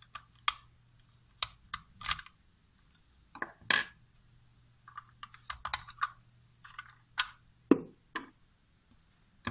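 Irregular sharp plastic clicks and clacks as AA batteries are pried out of a plastic battery holder with a screwdriver and the meter's plastic case is handled, with a few louder snaps as batteries pop free.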